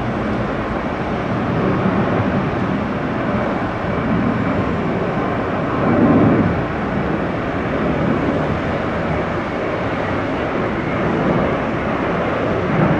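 Jet airliner engine noise, a steady rushing rumble that swells briefly about six seconds in.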